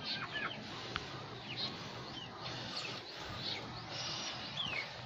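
Small birds chirping: short, high, mostly falling chirps scattered throughout, over a steady outdoor hiss.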